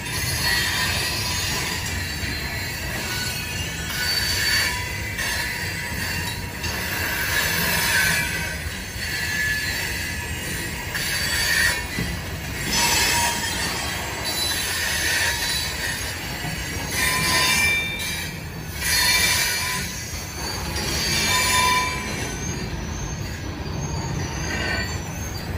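Loaded coal hopper cars of a freight train rolling past, with a steady low rumble of wheels on rail and high-pitched wheel squeal that rises and fades every few seconds.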